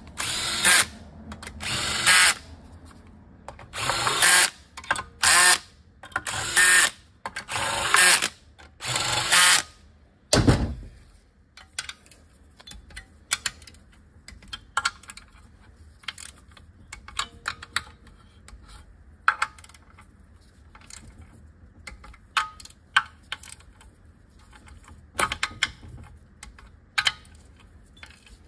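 Cordless drill/driver running in short bursts, about seven in the first ten seconds, as it runs bolts into the valve body of an automatic transmission. One low thud follows, then light scattered clicks of a ratchet and hand tools on the metal.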